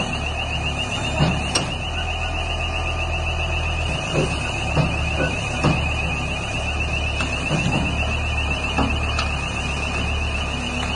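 Diesel engine of a tracked mobile screening plant running steadily as the machine crawls off a lowbed trailer, with a continuous fast-pulsing warning beeper sounding over it. Short clanks and creaks from the steel tracks on the trailer deck come every second or so.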